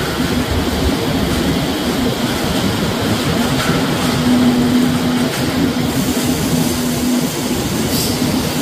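A plastic film scrap washing line running. The floating tank's motor-driven paddle rotors churn wet LDPE film scrap, making a steady, loud machinery noise with a hum that comes and goes.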